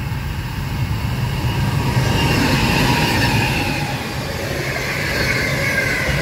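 Freight train passing close by at speed: a loud low rumble of wagon wheels on the rails, rising to its loudest about two to three seconds in, with thin high tones sliding slowly lower above it.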